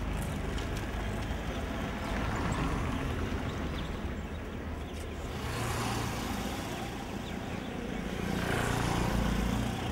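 Street traffic: cars and motorbikes passing, the engine and tyre noise swelling and fading about three times over a steady background.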